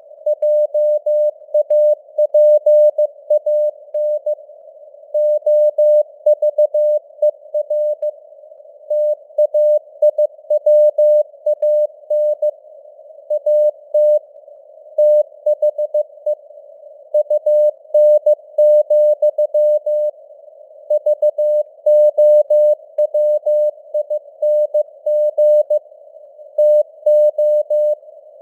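Morse code (CW) sent at 15 words per minute as a single mid-pitched beep tone keyed on and off in dots and dashes, with pauses between words. A faint hiss of simulated radio noise fills the gaps, and the signal strength fades up and down as simulated QSB.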